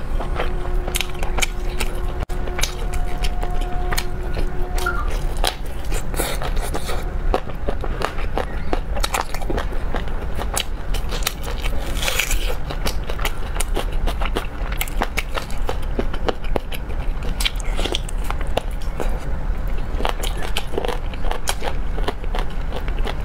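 Close-miked eating sounds: wet, sticky chewing and biting of glazed pork shoulder-blade meat on the bone, full of small clicks and crackles. About halfway through there is a crisp crunch as a whole raw red onion is bitten.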